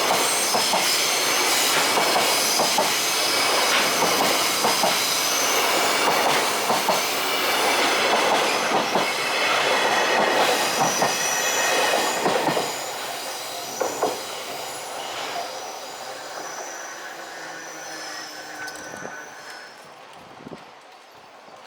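Freight train's container wagons rolling past, wheels squealing in several high steady tones and clacking over rail joints. The sound fades away over the second half as the train moves off.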